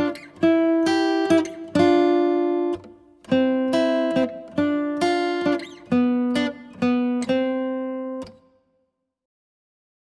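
Music: a plucked string instrument playing a short phrase of single notes and chords, each note ringing and fading, about two a second. It stops about eight seconds in.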